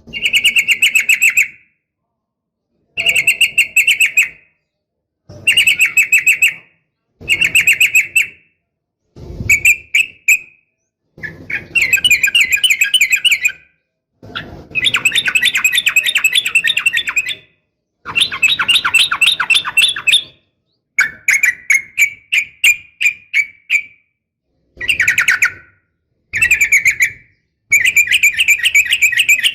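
Yellow-vented bulbul (trucukan) calls in bursts of rapid chattering notes, each phrase lasting one to three seconds with short fully silent gaps between them. The calls are presented as a female calling a male and as fighting chatter.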